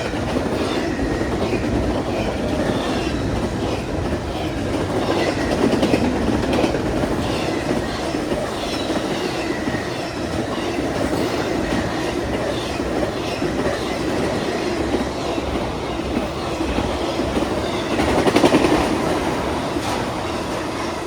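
Union Pacific double-stack container cars rolling past, with a steady rumble of steel wheels on rail, regular clicking over rail joints and faint wheel squeal. The noise swells briefly near the end.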